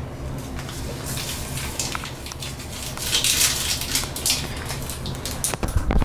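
Something poured into the water of a toilet bowl, a pattering splash that swells about three seconds in and tails off with a few clicks near the end.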